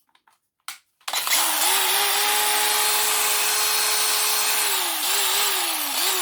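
DeWalt DCG412N 18 V cordless angle grinder switched on about a second in, spinning up and running unloaded with a steady high whine. Near the end its speed drops and picks up again twice.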